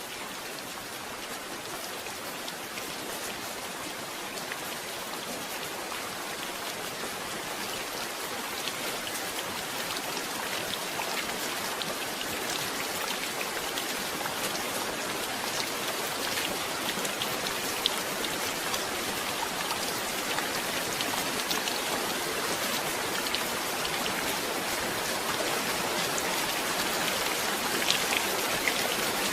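Steady heavy rain falling, with many close drops heard as sharp ticks on a surface; it slowly grows louder.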